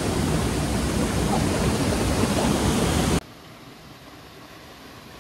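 Loud, steady roar of a large waterfall close by, Seven Sisters Falls. About three seconds in it cuts off suddenly to a much quieter, steady hiss.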